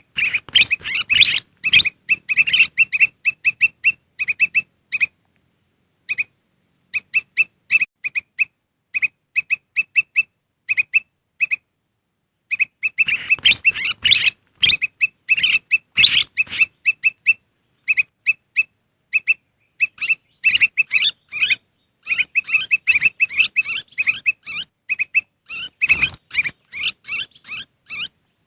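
Kutilang emas (a bulbul) lure recording: rapid strings of short, sharp chirps, dense and chattering at times and broken by a couple of brief pauses. It is a call played to draw wild kutilang emas in.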